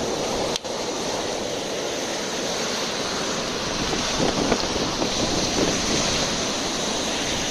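Surf washing in a steady rush, with wind buffeting the microphone; the sound drops out for an instant about half a second in.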